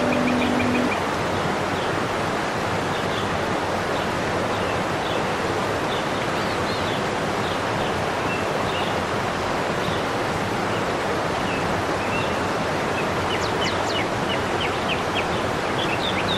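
A fast stream rushing over rocks in a steady, even rush of water, with small birds chirping over it throughout and a flurry of chirps near the end.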